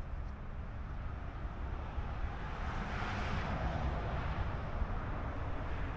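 A vehicle passing by. Its tyre and engine noise swells and fades about three to four seconds in, over a steady low outdoor rumble.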